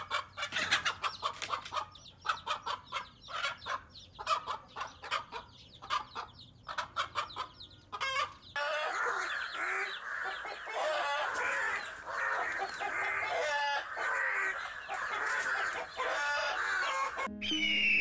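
Chickens clucking in rapid short calls. About halfway through, this gives way to a dense, continuous din of overlapping squawks from a flock in alarm as a hawk attacks. Music comes in just before the end.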